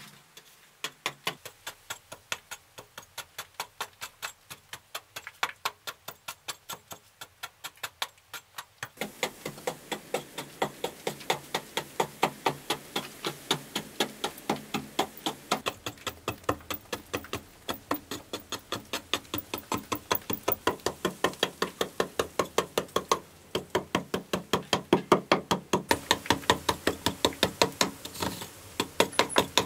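Hand tool chipping into a soft rock wall to carve grooves, with a steady run of sharp knocks about three a second. The knocks grow louder in the last few seconds.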